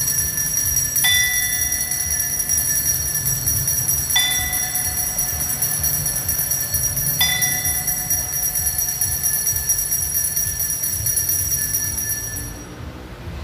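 Altar bells ringing at the elevation of the chalice: a steady high jingling of a cluster of small bells, with three strikes of a lower-toned bell about three seconds apart. The ringing stops near the end.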